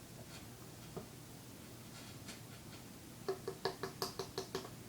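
A quick run of light knocks, about six a second, in the last second and a half: the opened shotgun shell being tapped to shake its gunpowder out.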